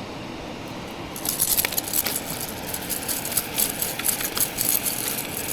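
Metal rattling and clicking that starts about a second in and goes on irregularly, over a steady rush of river water.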